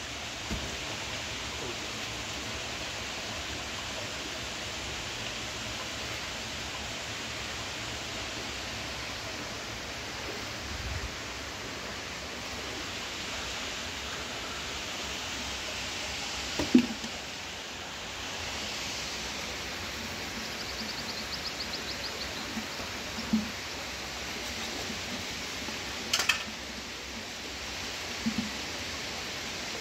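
Steady rushing of running water, with a few sharp knocks and thumps from handling buckets of wet mud, the loudest about a third of the way in.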